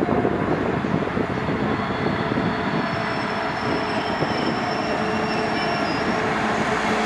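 Class 66 diesel freight locomotive hauling tank wagons as it approaches and passes at speed, a steady, growing wash of engine and wheel-on-rail noise that gets louder toward the end. A thin high wheel squeal comes in around the middle.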